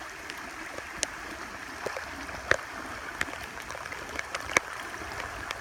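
Steady rain falling on swamp water with sheet flow running in, a continuous hiss of water. Scattered sharp ticks, about one a second, from single raindrops landing close by.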